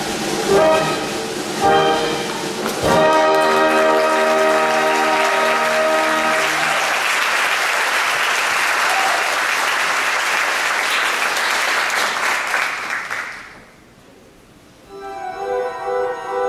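Live theatre orchestra ends a number with short brass-led chords and a held final chord, then the audience applauds for about seven seconds. The applause dies away, and after a brief pause the orchestra starts again with repeated notes.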